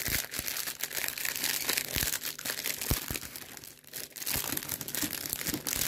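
Small plastic zip-lock bags of diamond-painting drills crinkling as they are handled and pulled out, with a few sharper knocks among the rustling.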